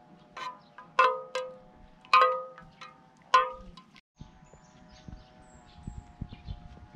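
Knife blade of a Victorinox Swiss Army knife clinking against the inside of a metal mess tin while stirring a drink: about six ringing clinks in the first three and a half seconds, the loudest about a second and two seconds in, then only faint light ticks.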